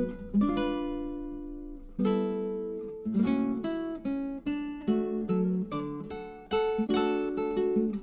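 Background music: an acoustic guitar strummed in chords, each strum ringing out and fading before the next.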